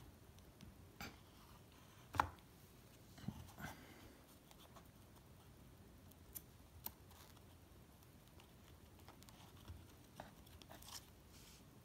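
Faint, scattered clicks and scrapes of cardboard trading cards being handled and slid out of a tightly packed card box. The loudest click comes about two seconds in.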